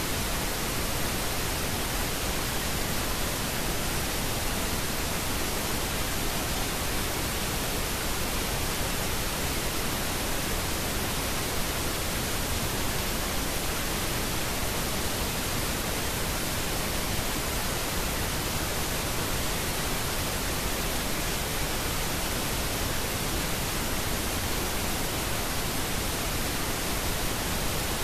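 Steady, even synthetic noise hiss spread across the whole range from deep to high, unchanging throughout: the masking noise bed of a subliminal affirmation recording.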